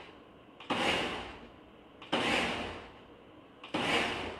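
Ninja countertop blender pulsed three times, about a second and a half apart, chopping hot cooked figs and lemons. Each pulse starts abruptly and dies away as the motor spins down.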